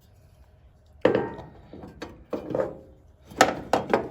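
Door-spring tool being tightened down on a car door hinge: a series of sharp metal scraping and rasping strokes with knocks, starting about a second in and coming faster near the end.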